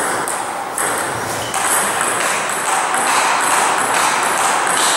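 Table tennis ball clicking against paddles and the table, short sharp ticks about twice a second.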